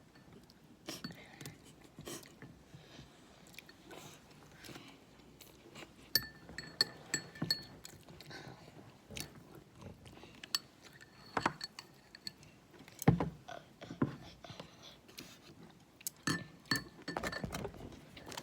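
Close-up eating sounds: chewing and biting, with scattered clicks and a few light ringing clinks, typical of utensils touching a dish.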